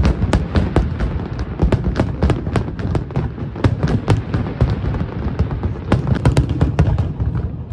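Aerial fireworks display at full barrage: shells bursting in rapid, overlapping booms, several a second, over a continuous low rumble.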